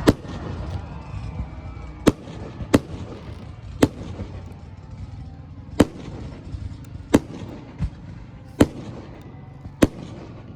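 Fireworks display: aerial shells bursting in about nine sharp bangs at uneven intervals, over a steady low background rumble.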